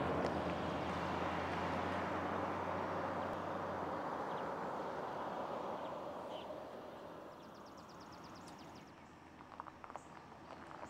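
Pickup truck driving away on a paved road, its engine and tyre noise fading steadily into the distance. A short high trill and a few light knocks follow near the end.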